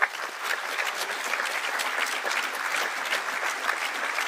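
Audience applauding: dense clapping from many hands that starts suddenly and keeps up steadily.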